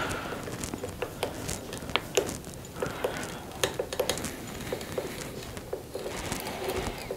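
Irregular light clicks and taps of tools and wood being handled, about two or three a second, with no motor running.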